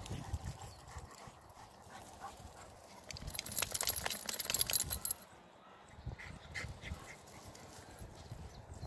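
Rottweiler, wet from the pond, shaking water from its coat: a dense, rapid flapping rustle lasting about two seconds near the middle, the loudest thing heard.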